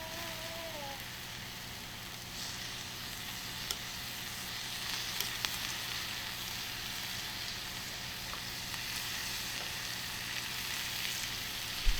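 Beef sizzling steadily on a hot iron griddle plate, with a few faint pops and one sharper knock just before the end.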